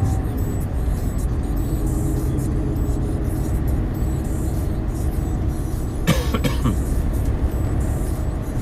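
In-cab noise of a Renault T truck driving at town speed on a wet road: a steady diesel engine drone with tyre and road noise. About six seconds in there is one brief scraping squeak from a windscreen wiper stroke.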